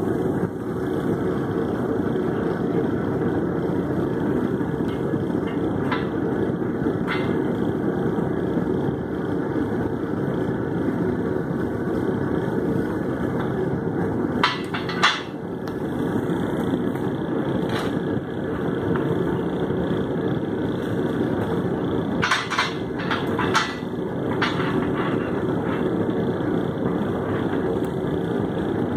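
Hammer blows on a steel anvil during hand forging: about ten scattered strikes, some in quick pairs and a short cluster past the middle, over a steady rushing noise.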